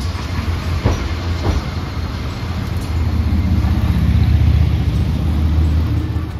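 Hiroden 5100-series Green Mover Max articulated low-floor tram running in along the track: a low, steady rumble that grows louder a few seconds in and eases near the end. A couple of sharp knocks come about a second in.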